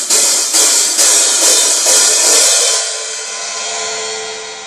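Vintage Paiste 404 14-inch medium hi-hats in B8 bronze, played open with a stick: about five strikes, roughly two a second, each with a bright sizzling wash. The strikes then stop and the open hats are left ringing, slowly fading.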